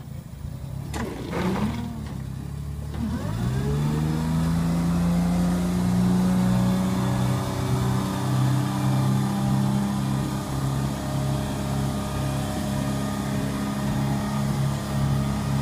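Engine of an eight-wheeled amphibious all-terrain vehicle rigged as a robot, picking up revs about three seconds in and then running steadily as the vehicle drives and turns.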